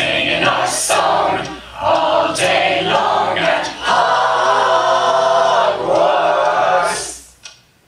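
A crowd singing together in chorus, several sung phrases ending on a long held note that fades out about seven seconds in.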